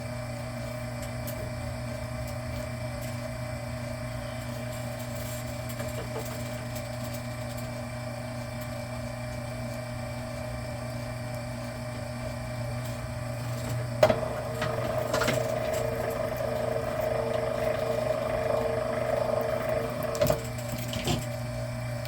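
Electric wire stripper's motor running with a steady hum. About 14 seconds in there is a click, and for about six seconds a length of Romex cable is pulled through the stripper, adding a second tone and a louder whirr. It ends with a couple of clicks.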